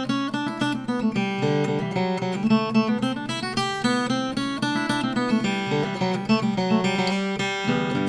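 Martin custom single-0 14-fret steel-string acoustic guitar with birdseye maple back and sides, played without pause: a quick run of picked notes and chords over ringing bass notes.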